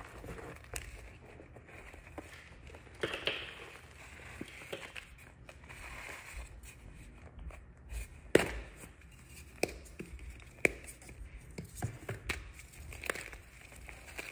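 Hands crushing and crumbling a reformed block of gym chalk: soft powdery crunching and rubbing, broken by sharp cracks now and then, the loudest about eight seconds in.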